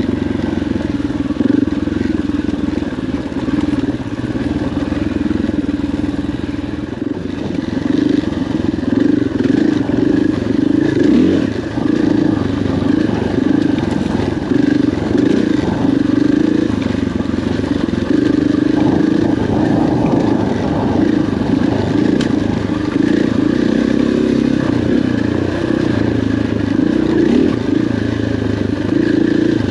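KTM 500 XC-W dirt bike's single-cylinder four-stroke engine running under constantly changing throttle, the revs rising and falling.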